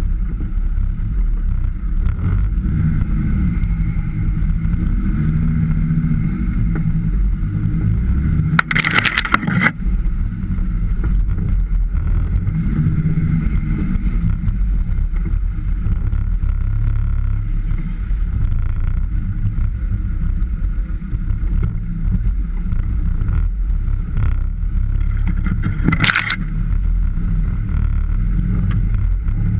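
Land Rover Defender engine running at low speed off-road, its pitch rising and falling as it is throttled on and off. There are two short loud bursts of noise, about nine seconds in and near the end.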